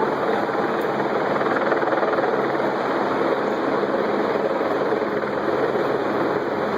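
A loud, steady droning noise with no distinct bangs or breaks.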